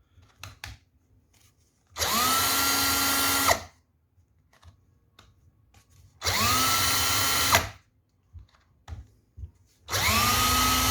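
DeWalt DC988 cordless drill run three times in bursts of about a second and a half. Each time the motor spins up quickly to a steady whine, holds, and stops, with the reassembled gearbox turning smoothly. Light clicks come between the runs.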